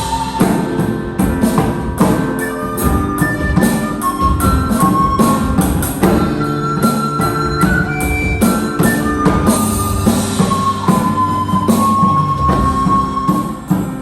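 A small live band playing instrumental music: a drum kit keeps the beat under steady chords and a melody of long held notes.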